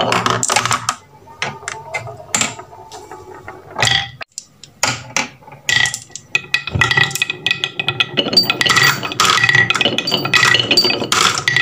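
Wooden marbles and balls clacking and rolling along wooden marble-run track. From about six seconds in, a small brass bell hanging in a wooden track block rings again and again as marbles run through and strike it.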